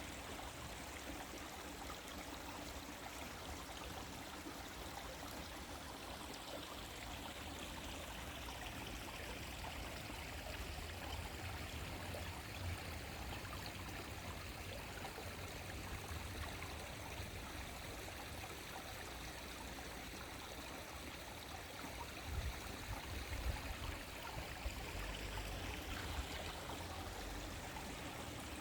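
Clear winter stream flowing and babbling steadily over its bed. A brief low rumbling on the microphone comes about three-quarters of the way through.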